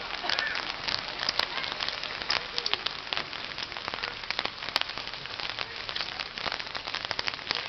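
Dense, steady crackling noise full of small clicks, with faint voices of people now and then.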